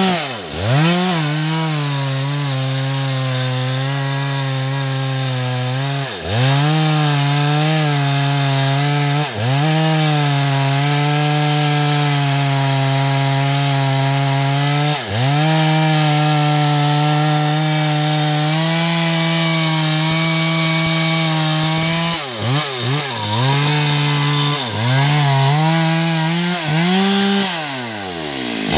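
Stihl MS 382 two-stroke chainsaw at high revs, cutting into a big teak trunk. The engine note dips briefly and recovers every few seconds, with several quick drops and revs about two-thirds through and a deep fall and climb back near the end.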